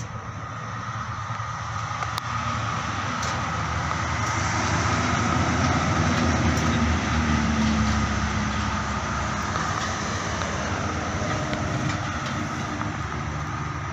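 A vehicle's engine rumble passing by, slowly growing louder to its peak a little past the middle and then fading.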